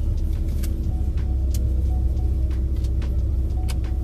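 Low, steady rumble of a car heard from inside the cabin, with a few sharp clicks.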